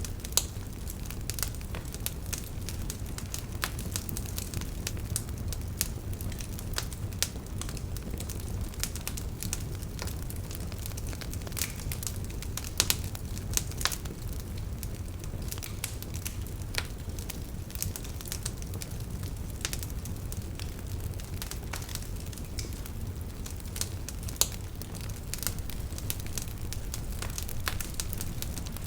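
Fire burning in a fireplace, crackling and popping at irregular intervals over a low, steady rumble.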